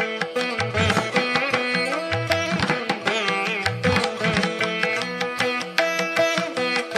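Instrumental background music in an Indian classical style, with plucked strings over a hand-drum rhythm.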